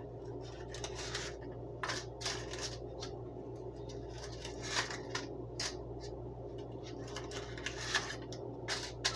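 Crinkling and rustling of a disposable aluminium foil muffin tin and paper cupcake liners being handled, in short irregular bursts, over a steady low hum.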